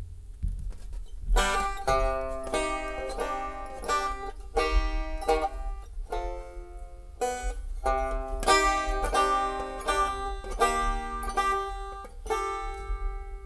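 Resonator banjo played solo: plucked notes and chords in short phrases with brief gaps, starting about a second and a half in.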